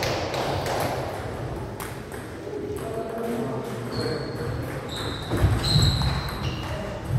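Table tennis ball being struck and bouncing on the table, a series of sharp irregular clicks in a large, echoing hall.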